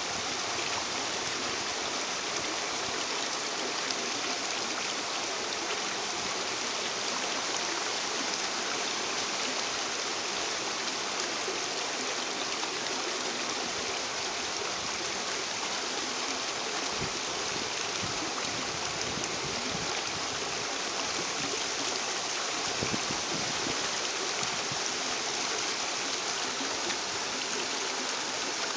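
Steady rushing hiss of running water, unchanging throughout.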